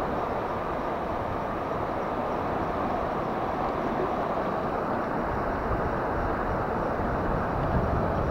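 Steady rushing of river water flowing past rocks, an even unbroken noise.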